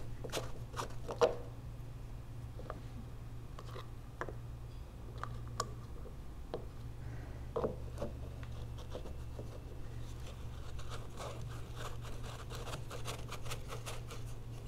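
Hands handling the pressure washer's plastic inlet water filter housing, unscrewing it to check the screen for blockage: scattered scraping, rubbing and clicking, with a few sharper clicks and a run of small ticks in the last few seconds. A faint steady low hum runs underneath.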